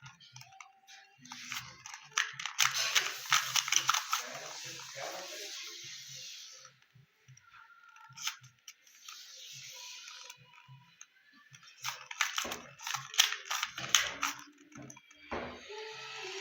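Plastic 2x2 Rubik's cube being turned by hand: the layers click and rasp in quick runs. There are two spells of turning, one a couple of seconds in and one about twelve seconds in.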